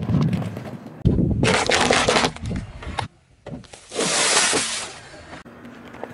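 Car tyre rolling slowly over objects on asphalt in several short cuts, making crunching and crackling noises that start and stop abruptly. Near the middle, a ball of aluminium foil crinkles as it is pressed flat under the tyre.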